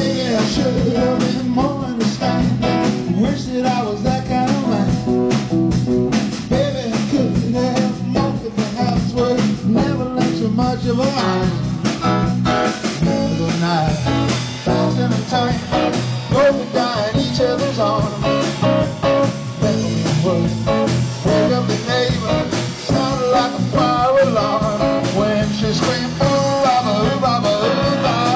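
Live rock trio playing a bluesy song with guitars and a steady beat.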